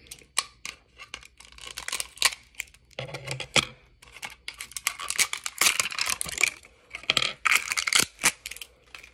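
Clear plastic packaging of a stack of plastic shower curtain rings being handled and picked open by hand: irregular crinkling rustles and sharp plastic clicks.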